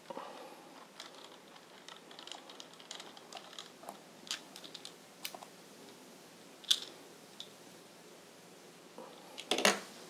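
Light clicks and ticks of a small screwdriver working the screws of an Acer Aspire One 722 netbook's plastic bottom cover. There is a sharper click about two-thirds of the way in, and a louder plastic clatter near the end as hands take hold of the cover.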